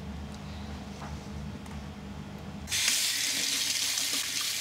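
Kitchen tap turned on about two-thirds of the way in, water running steadily into the sink after a low hum.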